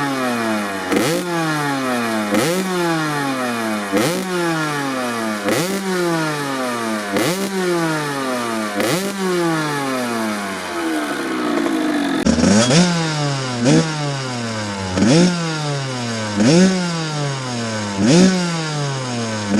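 Kawasaki KX80's two-stroke single-cylinder engine being revved in repeated throttle blips, about one every second and a half. Each blip snaps the revs up sharply and lets them fall back slowly before the next.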